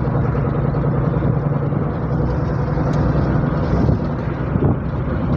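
Steady engine and road noise of a car driving, heard from inside the cabin, with a strong low drone.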